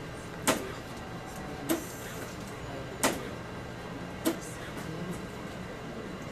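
ARTAS robotic hair-harvesting system working in automated mode: a sharp mechanical click about every 1.2 seconds, four in all, over a steady low hum.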